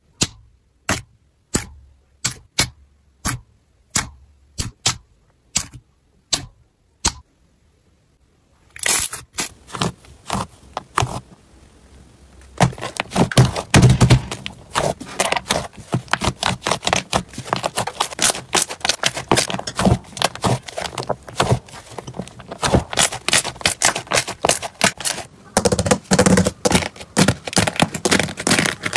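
Hands working slime. First a regular series of sharp clicking pops, then after a short lull a dense, continuous crackling and squishing as the slime is pressed and its hardened crust cracked.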